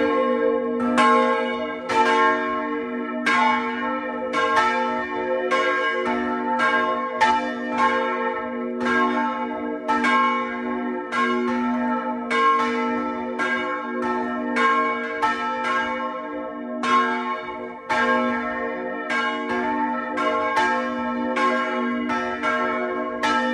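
Several church bells ringing together in an irregular, overlapping pattern of strokes about twice a second, over a steady low ringing tone that lingers between strokes.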